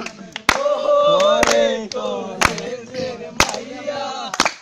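A group of people singing together, mostly male voices, keeping time with hand claps about once a second.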